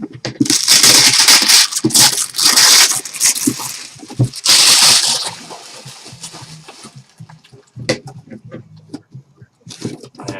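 Trading-card box packaging being torn open: loud crinkling and ripping for about five seconds, then quieter rustling and handling clicks.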